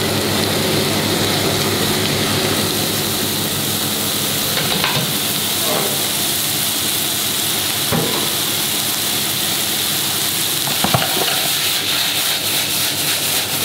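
Lentils frying in hot oil and vegan butter with shallots in a stainless saucepan, a steady sizzle over a low hum, with a few knocks of the pan and the pan being tossed near the end.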